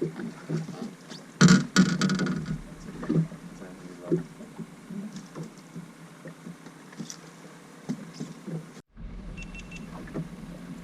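Scattered knocks and clatter of handling on a fishing boat, with a louder burst of rattling about a second and a half in. The sound drops out briefly near the end.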